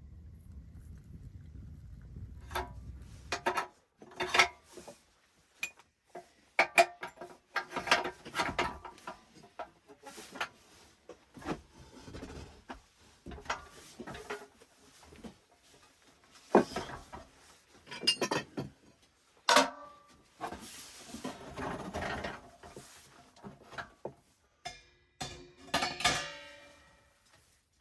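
A low steady rumble for the first few seconds, then irregular metallic clanks and knocks, some ringing briefly, as a small black sheet-steel wood stove and stainless-steel chimney pipe sections are handled and set down on a wooden plank floor.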